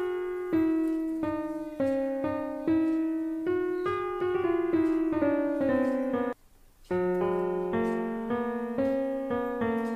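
Background piano music: a simple melody of separate notes, each struck and fading, breaking off for about half a second just after the middle.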